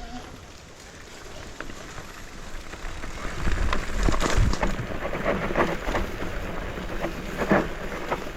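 Mountain bike riding down a rough trail: tyres on dirt and rock, the bike rattling and knocking, with wind on the microphone. Louder and busier from about three seconds in.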